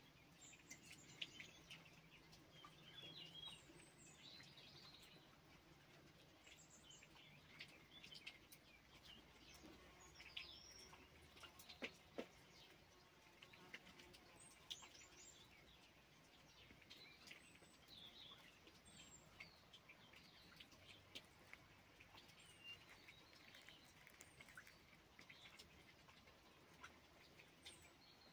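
Faint chirping of small birds: short high chirps and twitters scattered throughout, over a quiet background, with a few soft clicks near the middle.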